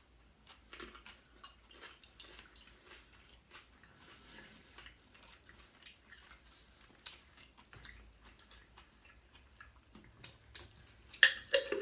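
A person biting into and chewing a juicy cheeseburger close to the microphone: soft, wet mouth clicks and squishes. A few louder clicks come near the end.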